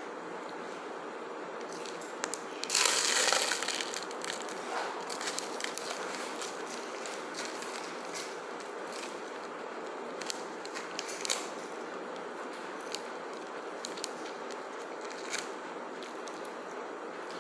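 Aluminium foil takeaway tray crinkling as it is gripped and handled, loudest about three seconds in, followed by scattered clicks of a plastic fork picking food out of the tray, over a steady background hiss.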